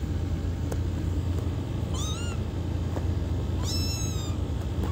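Kitten meowing twice: a short meow about two seconds in and a longer one near four seconds, each rising and falling in pitch, over a steady low hum.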